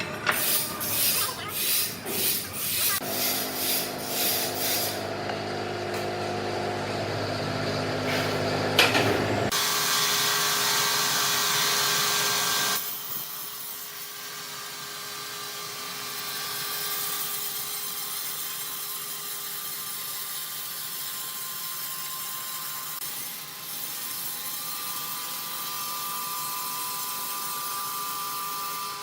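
Sawmill wood-processing machinery running in a series of changing stretches. First comes a rhythmic clatter, then a steady pitched machine hum that cuts off suddenly about nine seconds in, a short loud hiss, and then a quieter steady run with a held whine.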